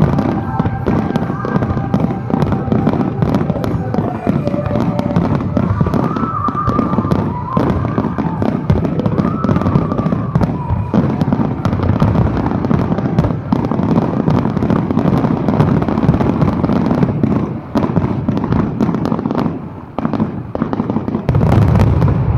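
A fireworks display going off in a dense, continuous barrage of bangs and crackles, with a heavier burst of low booms near the end. Show music plays faintly underneath in the first half.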